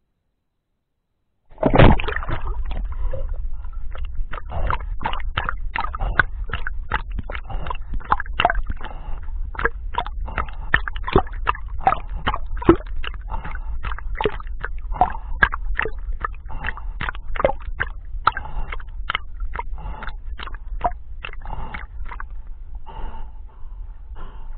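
A dog swimming with a small action camera in a waterproof housing in its mouth, heard from the camera itself. The sound starts suddenly with a splash about a second and a half in, then goes on as water sloshing and splashing in a quick regular rhythm of about two to three pulses a second as the dog paddles.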